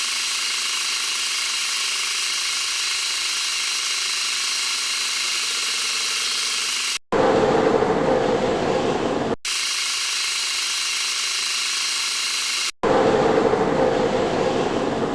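Metal lathe running, in abruptly cut clips: a steady high whirr alternates twice with a louder, rougher machining sound.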